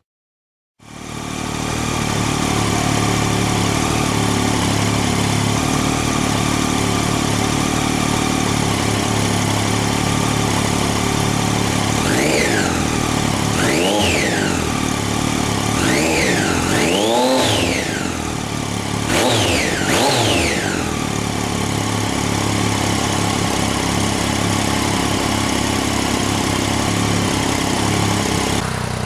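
Triumph Daytona 675's inline three-cylinder engine idling through an aftermarket TOR exhaust. In the middle it is revved five times, each rev climbing and dropping quickly back to idle.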